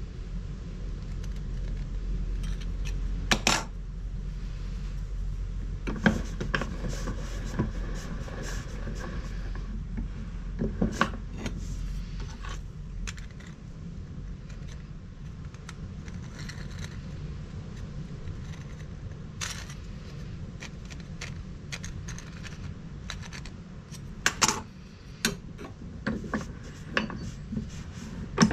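Light metallic clicks and clinks of steel vernier calipers against a thin sheet-steel exhaust cone, a few single sharp ones spread apart and a quicker run of clinks near the end, over a low steady background hum.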